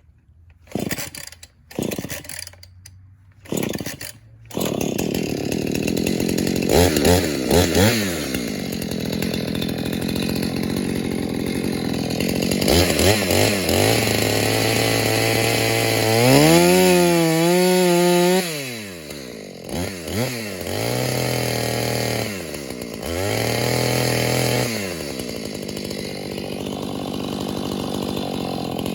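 Husqvarna 450 Rancher two-stroke chainsaw being pull-started: three short bursts as the starter is pulled, then the engine catches about four and a half seconds in. It runs on, revving up and down repeatedly while cutting small trees, with its highest, longest rev about halfway through.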